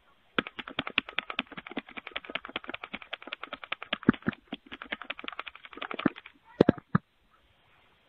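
Rapid knocking on a front door, about ten quick knocks a second for some six seconds, then two or three harder knocks; picked up close by a doorbell camera's microphone.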